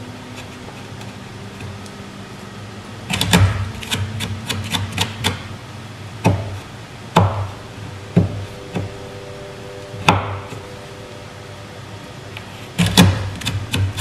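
Knife blade cutting and scraping wood out of a door jamb's strike-plate mortise to deepen it: irregular bunches of sharp clicks and knocks, the busiest a few seconds in and near the end.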